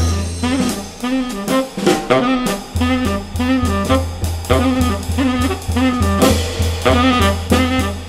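Jazz playing as background music: saxophone over a drum kit with a steady beat.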